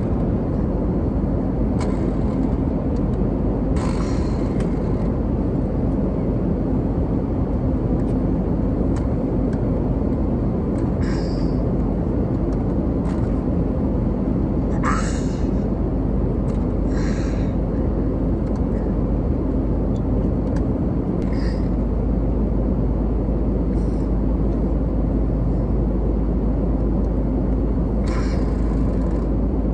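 Steady low rumble of jet airliner cabin noise in flight, with a few brief clicks and knocks over it. The deepest hum grows stronger about two-thirds of the way through.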